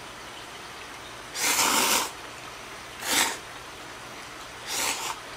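A person slurping cold hiyashi chuka noodles off chopsticks: three slurps, the first the longest at almost a second, then two short ones about a second and a half apart.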